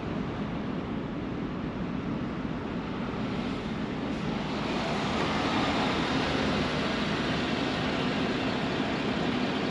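Pickup truck engine and tyre noise heard from inside the cab as it creeps forward at low speed. The noise steps up louder and brighter about halfway through.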